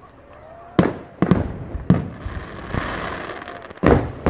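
Aerial fireworks shells bursting: four loud booms, the last one near the end, each echoing away, with a hiss between them.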